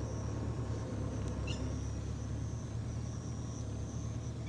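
Steady low rumble of outdoor background noise, with a faint high steady tone and a few faint short chirps.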